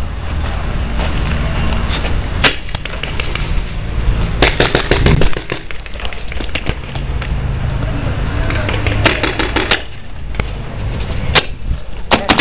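Paintball markers firing: a single shot about two and a half seconds in, a fast burst of pops around four and a half seconds, another burst around nine seconds, and a couple of lone shots near the end, over a steady low rumble.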